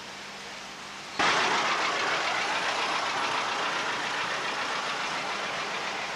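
Engine and road noise of a motor vehicle driving along a street, a steady loud rush with no clear pitch, cutting in abruptly about a second in.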